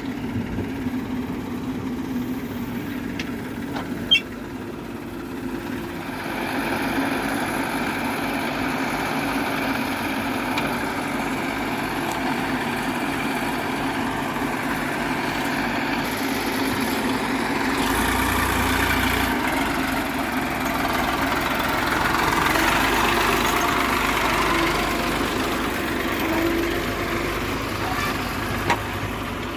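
Diesel engines of farm tractors and a backhoe loader running, growing louder and busier from about six seconds in, with a sharp knock about four seconds in.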